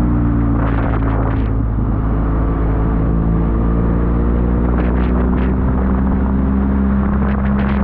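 Motorcycle engine running under way, its pitch slowly rising partway through and then holding steady. There is a steady noise underneath, and a few short hisses about a second in, around five seconds in and near the end.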